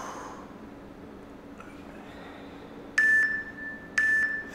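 Interval workout timer counting down the last seconds of a work interval: two short, identical electronic beeps one second apart, starting about three seconds in.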